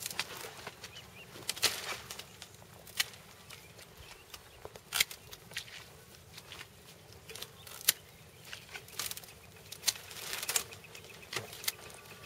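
Hand pruning shears snipping grapevine canes: irregular sharp snips, roughly one every second or two, with rustling of cut canes being pulled from the trellis between them.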